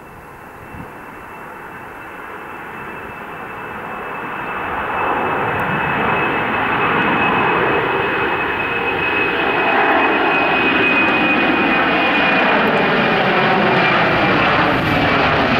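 Boeing 767-300 twin-engine jet climbing out overhead just after takeoff, its turbofans at climb power. The jet roar grows louder over the first five seconds or so and then holds loud, with a thin high whine over it.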